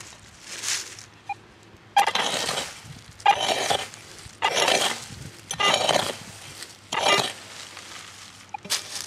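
A hand digging tool striking and scraping into dry, crumbly soil, about six strokes a little over a second apart, each a sharp hit followed by a short scrape of earth.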